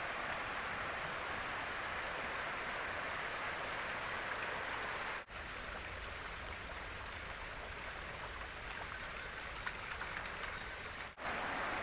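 Small rocky creek flowing over stones, a steady rush of running water. It drops out for an instant about five seconds in and again near the end.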